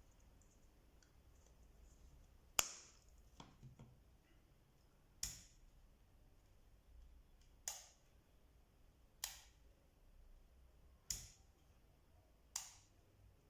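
A series of about seven short, sharp clicks, one every one to two and a half seconds, in an otherwise quiet room.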